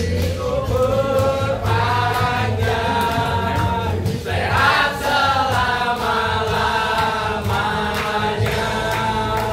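Music with voices singing together in a choir-like way over a steady low bass line.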